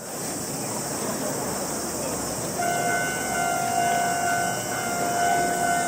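Steady street traffic rumble. About two and a half seconds in, a steady high pitched tone starts and holds on.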